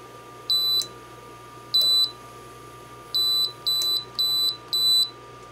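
Power Smokeless Grill's touch control panel beeping as its buttons are pressed: six short, high electronic beeps at uneven intervals.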